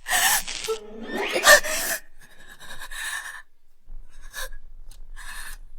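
A woman sobbing in distress, with sharp gasping breaths. The loudest gasp comes about one and a half seconds in, followed by fainter, shaky breaths.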